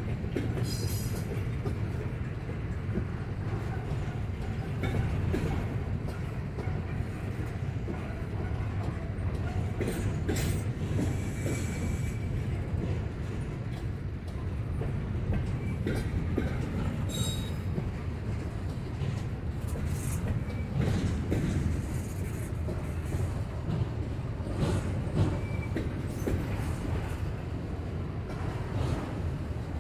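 Freight train rolling past: a steady rumble of steel wheels on rail as loaded double-stack well cars and then autoracks go by, with a few brief high-pitched wheel squeals.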